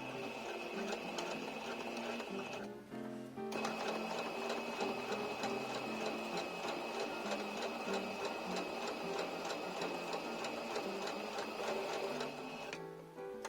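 Singer 7256 sewing machine stitching, a fast even ticking with a steady high whine from the motor; it stops about three seconds in, starts again a moment later and stops near the end.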